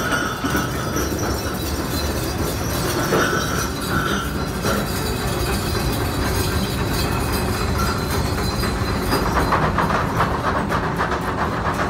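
Deck machinery of a fishing trawler running with a steady rumble, with heavy metal chains rattling and clanking. The clanks come thicker over the last few seconds.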